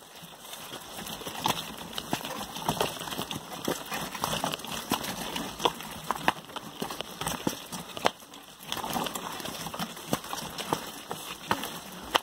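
Footsteps on loose stones and dirt, with mountain bikes rattling and knocking over rocks as they are pushed up a steep trail: an irregular run of clicks and knocks, easing off briefly a little past two-thirds of the way through.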